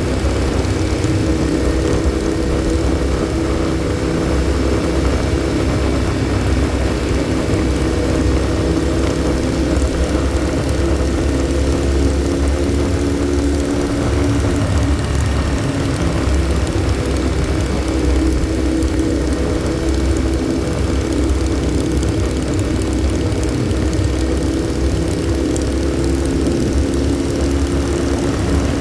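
Motorcycle engine running steadily at cruising speed, heard from the rider's own bike, with its note dipping briefly about halfway through. Wind rushes over the microphone underneath.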